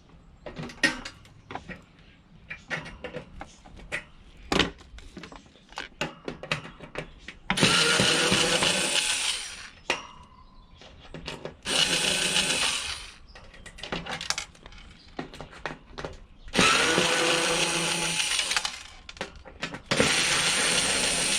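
Several seconds of scattered clicks and knocks, then a power drill running in four bursts of one to three seconds each, at the heater casing's odd screws that no screwdriver would fit.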